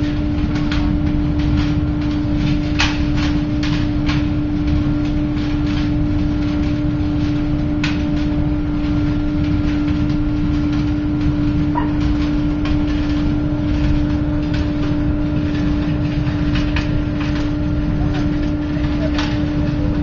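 5000 kW biomass sawdust burner firing a long open flame: a steady hum with a dense low rushing noise from the flame, and scattered sharp clicks.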